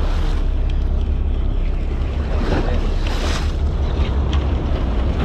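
Wind buffeting the microphone over the wash of sea water against a boat's hull, with a brief louder rush about three seconds in.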